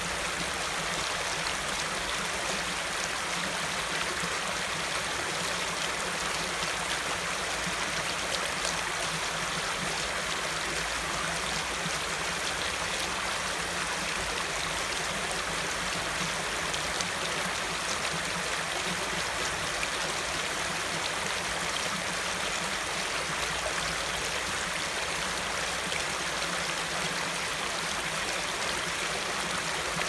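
Waterfall: water falling and splashing in a steady, unbroken rush.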